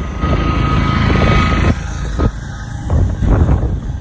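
Road noise of driving in traffic: a low rumble of engines and tyres, louder in the first half and easing off a little after. A thin steady whine sounds for about a second and a half near the start.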